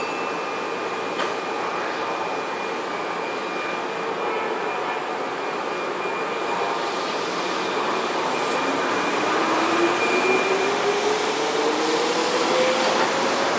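Keihan 6000-series electric commuter train pulling away from a station platform. Its running noise builds as it gathers speed, and from about eight seconds in the traction motors' whine rises steadily in pitch as it accelerates. There is a short click about a second in.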